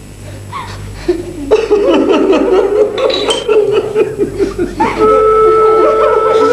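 Sobbing and wailing in grief, starting about a second and a half in; a flute comes in with long held notes near the end.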